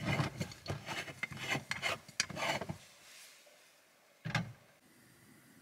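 Aluminium moka pot being screwed together by hand, its threads grating in a quick run of short scrapes for about three seconds. A little over four seconds in, a single clunk as the pot is set down on the stove's burner grate.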